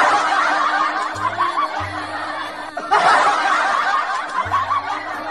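Dubbed canned laughter, many voices chuckling at once, in two swells with a short break just before the middle, over background music with low held notes.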